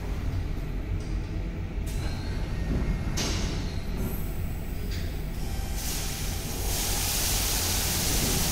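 Tammermatic T700 rollover car wash machine running with a steady low hum and spraying the car. Near the end a louder, steady hiss of spray sets in as the soap stage begins.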